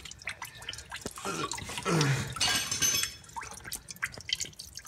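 Fluid dripping under the engine, mixed with scattered small metal clicks from a wrench working an oil cooler line fitting. A brief voice sound comes about two seconds in.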